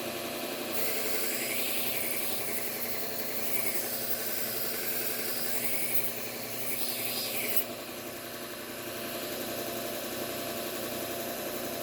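Bucktool slow-speed belt grinder running with a steady hum. From about a second in until nearly eight seconds, a knife blade held flat on the Trizact belt adds a loud abrasive hiss, which stops abruptly and leaves only the motor running.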